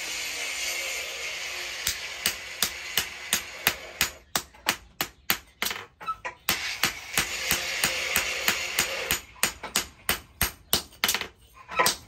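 Hand hammer striking an axe head held in tongs on a steel post anvil: a steady run of sharp metal blows, about three a second. A steady hiss lies behind the blows except for a few seconds in the middle.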